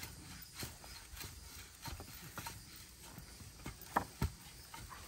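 Irregular dull thuds of soil being tamped down around a freshly planted bamboo clump, with two louder knocks close together about four seconds in.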